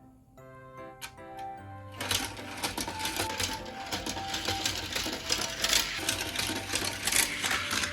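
Plastic toy vehicle clattering along plastic track: a rapid, steady mechanical rattle starting about two seconds in and cutting off suddenly near the end, with background music.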